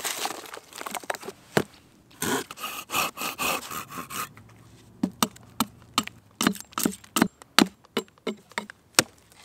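Split birch logs being handled, then a Fiskars folding saw rasping through a log in several quick strokes. After that comes a run of sharp, separate cuts as a curved knife shaves a wooden handle, about two a second.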